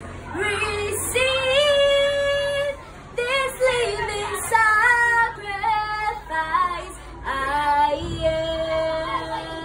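A young girl singing solo, holding long notes in phrases with brief breaks between them, about three seconds and seven seconds in.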